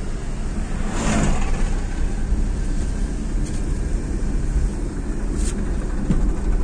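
In-cabin road noise of a Maruti Swift Dzire driving at road speed: a steady low rumble of engine and tyres, with a brief whoosh about a second in as an oncoming car passes.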